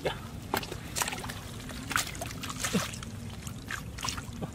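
Hands sloshing through shallow muddy water, with a handful of short, sharp splashes at irregular intervals.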